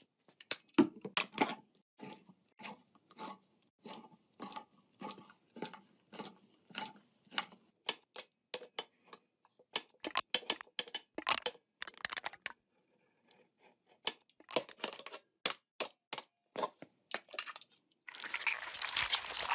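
Hand-cranked can opener working its way around a tin can lid in a long series of short clicking crunches, with a brief pause in the middle. Near the end, a gulping sound as the can's watery contents are drunk.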